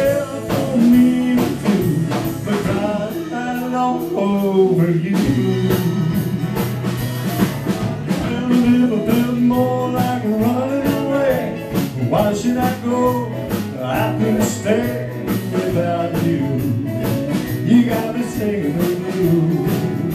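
Live country band playing an instrumental passage: strummed acoustic guitars, electric guitar and drum kit, with a melody line bending up and down over the chords.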